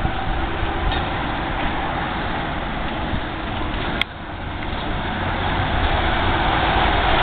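Street traffic noise, then a single-decker city bus drawing close, its engine growing louder over the last few seconds. A sharp click about four seconds in.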